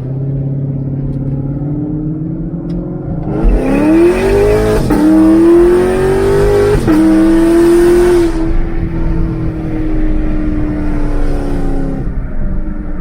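2016 Camaro SS's 6.2-litre LT1 V8 through long tube headers and an X-pipe, cruising, then accelerating hard from about three and a half seconds in. Its pitch climbs and drops twice as it upshifts. It lets off the throttle about eight seconds in and settles back to a steady cruise.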